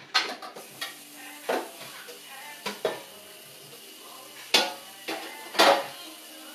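A metal baking sheet being washed in a kitchen sink under the running tap: a steady hiss of water with a series of sharp metal clanks as the pan knocks against the sink, the loudest two about four and a half and five and a half seconds in.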